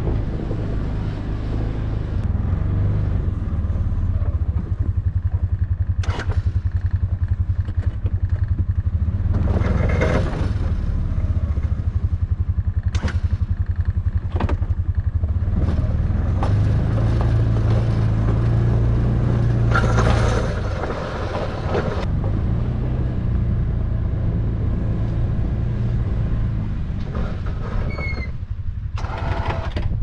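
Can-Am Defender HD7 side-by-side's single-cylinder engine running steadily under load as its steel plow blade pushes snow, the engine note rising and falling with throttle, with several short knocks from the plow and machine.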